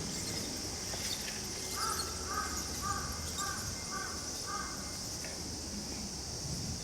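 A bird calling six times in a row, about two calls a second, over a steady high-pitched hiss.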